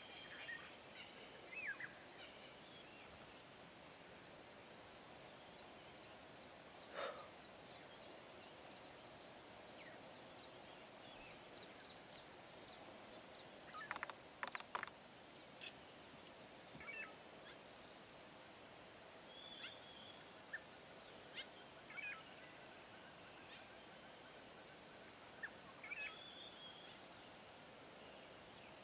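Faint African bush ambience: scattered short bird calls over a steady faint high hum, with a quick cluster of sharper calls about halfway through.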